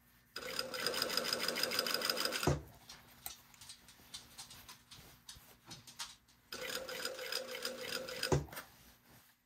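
Industrial straight-stitch sewing machine running in two bursts of about two seconds each, sewing a facing onto a knit neckline, each burst ending with a short knock as the machine stops. Faint fabric-handling ticks between the bursts.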